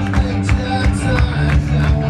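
A live rock band playing, heard from the audience floor: a steady bass line and drums with a regular beat about every third of a second, with guitar.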